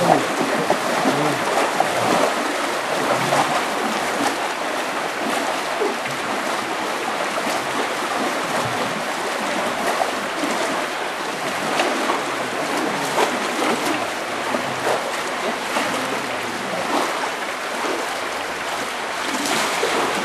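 Water rushing and churning along concrete coffee washing channels, stirred by workers' wooden paddles as wet parchment coffee is pushed through for final washing and grading, with small irregular splashes.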